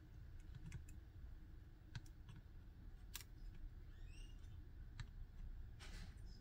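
Near-quiet room with a handful of faint, scattered clicks from hands handling a router circuit board while soldering at its SIM card holder.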